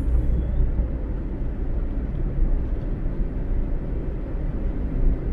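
Steady low rumble of a vehicle travelling at highway speed, engine and tyre noise on the road.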